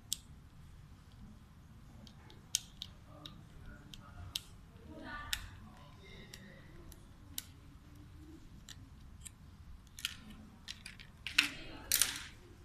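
Irregular sharp clicks and taps of small plastic toy parts being handled and pried apart, with a louder run of clicks near the end.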